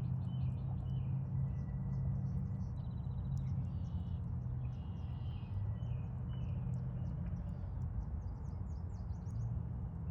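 Several wild birds singing and calling, with short chirps and a rapid trill about three seconds in, over a steady low rumble of distant traffic.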